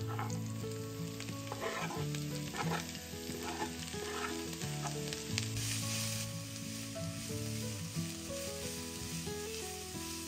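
Food frying and sizzling in a pan, stirred with a utensil that scrapes a few times in the first half. A short, louder hiss rises about six seconds in.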